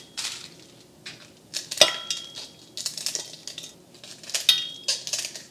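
Scissors cutting dried Kashmiri chillies over a stainless-steel mixer-grinder jar: a handful of irregular snips and metallic clinks. The loudest, about two seconds in, rings briefly like struck steel.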